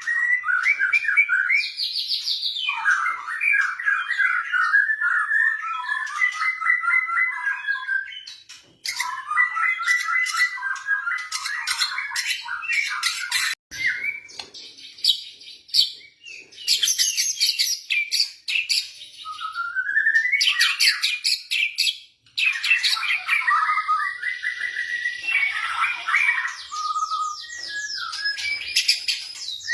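White-rumped shama (murai batu) singing a long, varied song of fast trills, rattles, sharp notes and rising whistles, with a few brief pauses.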